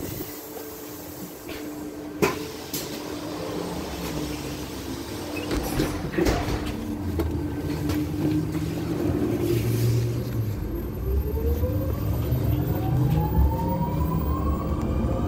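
KAMAZ-6282 electric bus heard from inside the cabin, pulling away and gathering speed. A low road rumble builds, and about two-thirds of the way in the traction motor's whine starts and rises steadily in pitch. A steady hum runs underneath, with a few sharp knocks in the first half.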